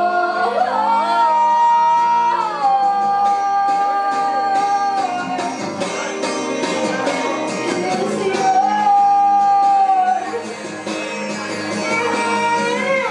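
A woman singing a slow song live into a microphone, holding long notes, accompanied by a strummed guitar.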